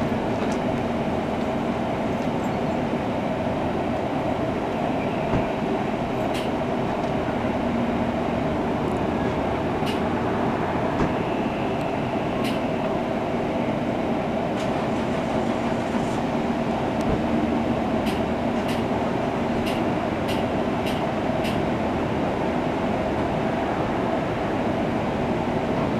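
Steady electrical and ventilation hum of a standing Rotem Silverliner V electric multiple-unit train, with two steady tones in it. Scattered light clicks come through, several in quick succession about three-quarters of the way through.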